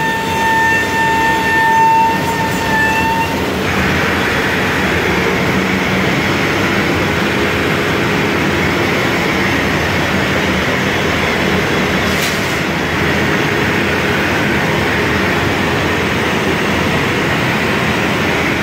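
CNC router spindle milling ABS sheet on a flatbed cutting table: a steady high whine over a rushing machine noise. The whine stops abruptly about three seconds in, leaving the steady rushing noise, with a single click near the middle.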